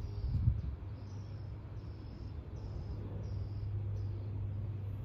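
Outdoor ambience: a low steady hum with a run of short, high chirps repeating a little under twice a second, and a brief thump about half a second in.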